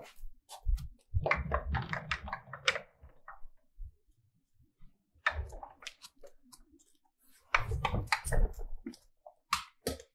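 Shuffling footsteps and handling knocks on a hard floor: three short bursts of scuffs and clicks over soft thumps, about a second in, around five seconds, and near eight seconds.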